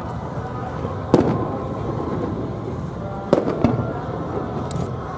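Distant aerial firework shells bursting with sharp bangs: one about a second in and two in quick succession about three and a half seconds in.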